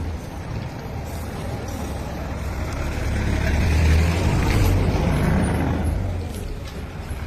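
A deep, noisy rumble that swells to its loudest about halfway through and then eases off.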